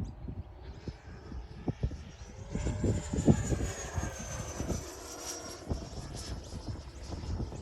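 High whine of the 90mm electric ducted fan of an E-flite Viper RC jet on a flying pass, swelling about two and a half seconds in and sliding slowly down in pitch as it goes by. Wind rumbles on the microphone throughout.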